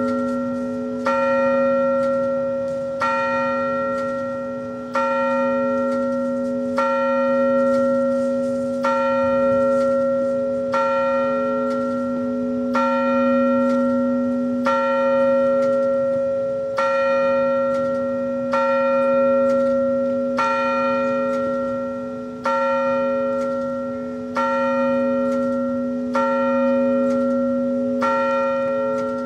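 A single bell tolled steadily, about one stroke every two seconds, each stroke ringing on under the next.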